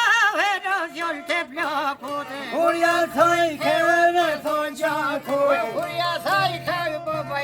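Albanian folk music: a heavily ornamented melody that bends and wavers in pitch, running over a steady low drone.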